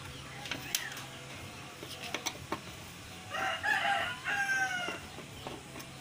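A rooster crowing once, about three seconds in, the call ending in a falling, drawn-out note. Under it are a steady low hum and a few light taps.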